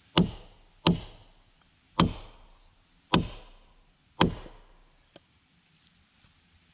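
Five heavy hammer blows, about one a second, each ringing out briefly with a faint metallic ring, then one light tap.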